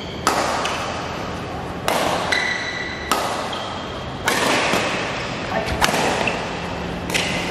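Badminton rackets striking a shuttlecock in a fast doubles rally: about six sharp cracks, roughly one every second or so, each echoing through a large hall.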